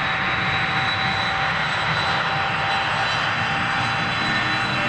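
Engines of a small twin-engine regional airliner running steadily as it rolls along the runway: a continuous rushing noise with a high, steady whine over it.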